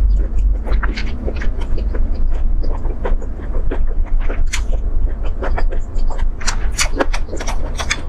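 Close-up wet chewing of chicken feet, with dense small clicks and crackles of skin and cartilage between the teeth over a steady low rumble.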